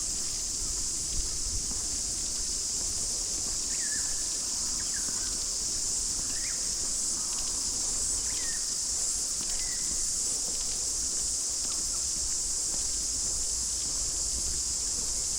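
A steady, high-pitched insect drone from a summer chorus, with a few short bird chirps in the middle.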